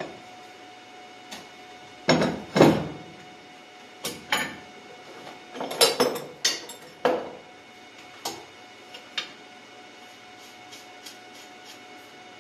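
Metal hand tools and engine parts clanking and clattering on a workbench, with a run of loud knocks in the first half followed by lighter clicks and faint ticks.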